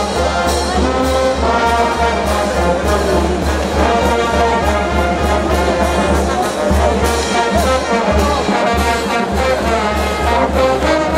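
Brass band music, trumpets and trombones playing sustained melody over a steady low beat.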